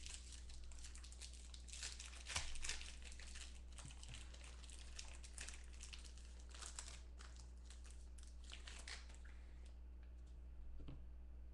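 A pack of trading cards being opened by hand: the wrapper crinkles and tears in a dense run of small crackles that die down about nine seconds in. A low steady hum runs underneath.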